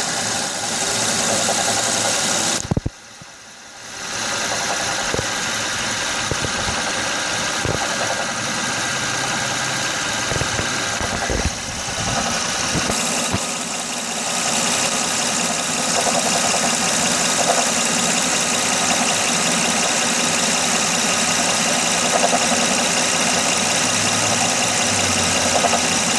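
2006 Honda Odyssey's 3.5-litre V6 idling with a knocking noise. Replacing the water pump, timing belt, tensioner, pulleys and power steering pump has not cured the knock. The sound drops away briefly about three seconds in.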